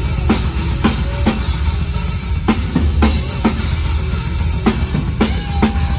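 A death metal band playing live and loud, heard from the front row: a drum kit with kick drum and cymbal hits every half second or so over heavy distorted guitar and bass.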